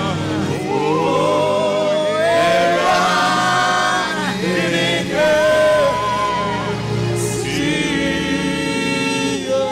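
Live gospel worship song sung in Twi: a male lead singer with backing vocals over instrumental accompaniment, with long held notes and vibrato.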